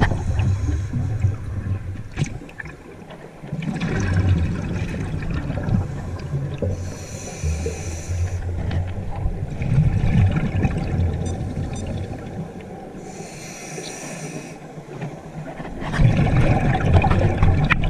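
Scuba diver breathing underwater through a regulator: two hissing inhales from the demand valve, about a third and three quarters of the way in, between longer stretches of exhaled bubbles rumbling and gurgling.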